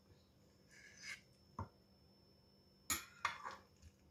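Metal spatula scraping and clinking against a glass baking dish as a portion is lifted out: a brief scrape about a second in, a soft knock, then two sharp clinks near the three-second mark.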